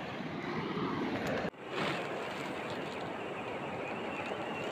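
Steady outdoor hiss of water, broken by an abrupt cut about a second and a half in, after which the hiss goes on brighter with faint scattered ticks.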